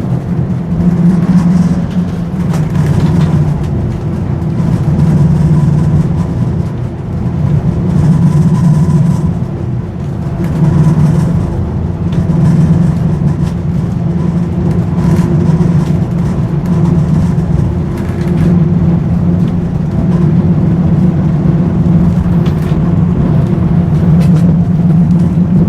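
Historic tram running: a loud, steady low hum from its motors and wheels on the rails that swells and eases every second or two, with a few faint clicks.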